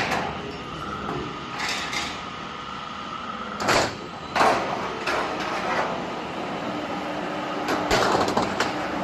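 Roll forming machine for corrugated steel roofing sheet running steadily, with several loud sheet-metal clatters and rattles. The loudest come a little under four and four and a half seconds in, and there is another cluster near the end.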